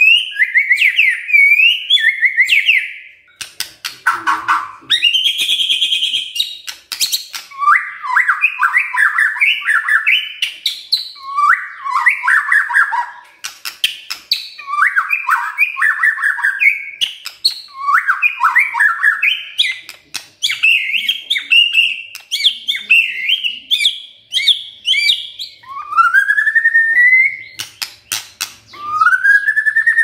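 White-rumped shama singing its chattering 'kretekan' song: short bursts of rapid, crackling notes with sharp clicks, repeated every couple of seconds. Near the end come two long rising whistles.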